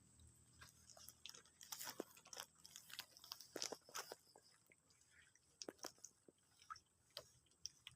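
Faint, irregular clicks and pops, a few a second, of catfish snapping up feed pellets at the water surface.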